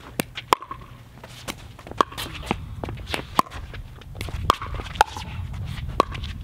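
Pickleball paddles striking a hollow plastic pickleball in a doubles rally: a string of sharp pocks, about one a second, each with a short ringing tone, and softer clicks in between.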